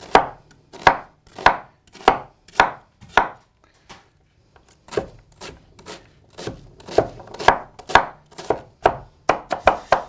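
Chef's knife chopping an onion on a wooden cutting board: crisp knife strikes about twice a second. There is a short pause about three and a half seconds in, and the strokes come quicker near the end.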